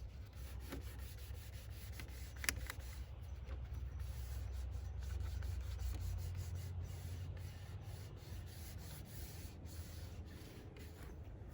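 A cloth rubbing and wiping over a plastic headlight lens, a steady scratchy friction noise. There is a sharp click about two and a half seconds in, and a low rumble underneath that fades about halfway through.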